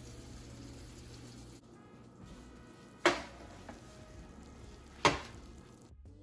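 Two sharp knocks of hard objects, about two seconds apart, over a faint steady hiss.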